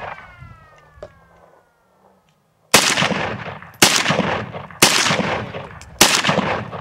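AK-pattern rifle fired four times, about a second apart, each shot echoing as it decays. The first two seconds hold only the fading echo of an earlier shot.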